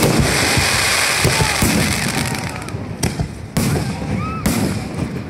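Aerial fireworks bursting: a loud bang followed by a long hissing crackle that fades, then two more sharp bursts near the end.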